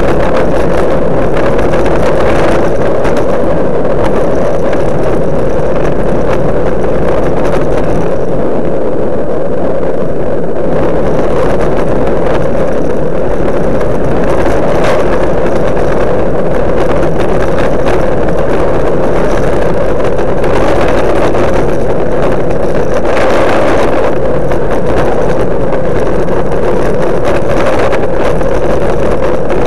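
Loud, steady rush of wind buffeting the microphone of a camera moving along at cycling speed, with a constant low drone underneath and no pauses.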